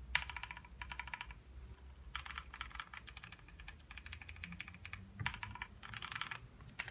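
Fast typing on a Leaven K550 mechanical keyboard with lubed Outemu Brown tactile switches, modded stabilizers and foam-dampened case: dense runs of keystrokes in short bursts with brief pauses between them.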